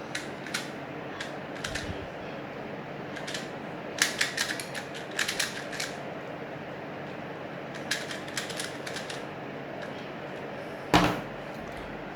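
A 2×2 Rubik's cube being turned fast in a speed-solve: its plastic layers clicking in quick bursts with short pauses between them. A single louder knock comes near the end.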